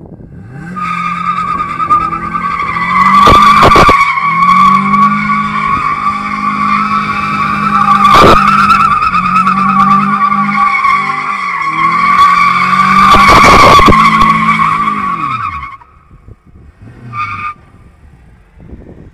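FSO Polonez sliding in donuts: its rear tyres squeal loudly and steadily under the spinning wheels while the engine is held high in the revs, dipping and picking up again several times. The squeal and engine stop abruptly a few seconds before the end.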